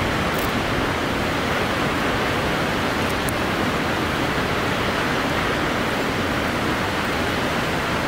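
Kegon Falls, a tall waterfall plunging into its basin, making a steady, dense rush of falling water.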